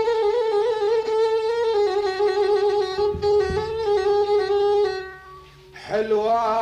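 Instrumental break in an Arabic song: one melody instrument plays long, wavering, ornamented notes that step down in pitch. It fades out about five seconds in, and the music comes back with a new, lower phrase near the end.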